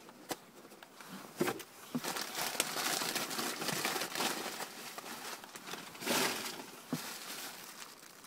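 Bubble wrap crinkling and rustling in the hands as a package is unwrapped, with a few sharp crackles along the way.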